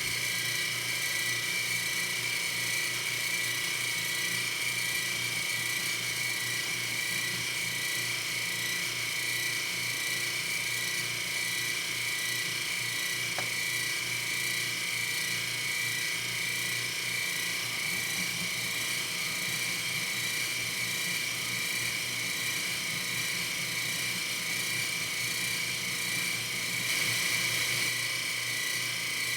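Shop machine tool running steadily with a high whine and no change in speed.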